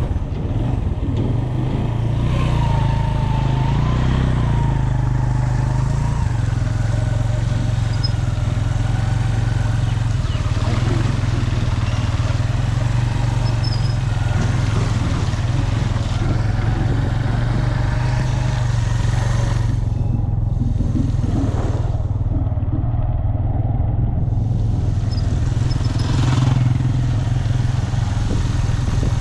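Motorcycle engine running steadily under way, a constant low hum mixed with road and wind noise. The higher sounds go briefly muffled about two-thirds of the way through.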